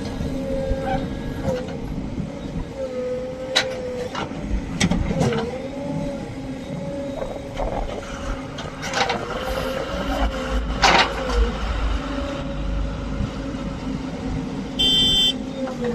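JCB backhoe loader's diesel engine running under changing load, its pitch dipping and recovering as the hydraulics work, with sharp metal clanks of the bucket. A short high-pitched beep or horn sounds near the end.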